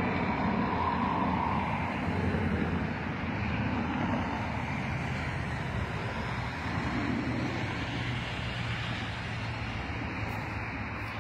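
Low rumble of a jet airliner slowly fading away as it recedes, over the steady hiss of highway traffic.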